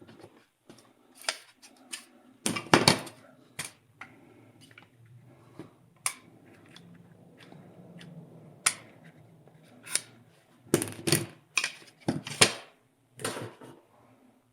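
Scattered sharp metal clicks and clanks of tools and parts being handled on a Brembo four-piston brake caliper while a piston is being worked loose. The loudest knocks come about three seconds in and again near the end, with a faint low hum in between.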